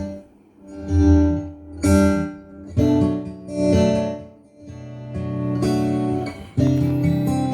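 Acoustic guitar intro of a pop song played back over hi-fi loudspeakers: strummed and plucked chords that swell and fade, with brief pauses between phrases.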